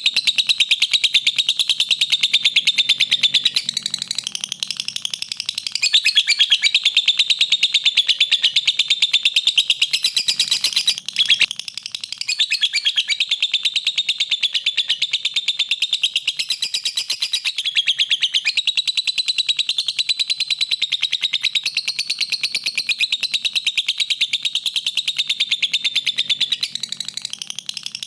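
Lovebird chattering in a long, rapid, unbroken string of high chirps, with a brief break about eleven seconds in.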